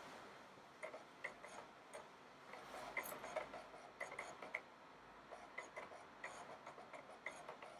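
Faint, irregular ticking and clicking from the iBook G4's disk drives at work while Mac OS X 10.5 Leopard installs from DVD.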